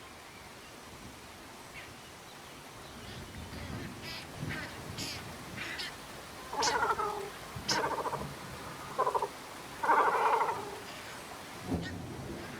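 Harsh, rasping bird calls, four or five in a row from about six seconds in, with a few short high chirps from smaller birds before them, over a steady faint hiss.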